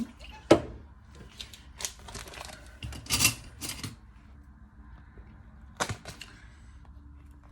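Scattered knocks and clicks of kitchenware being handled: the loudest about half a second in, a cluster around three seconds and another near six seconds.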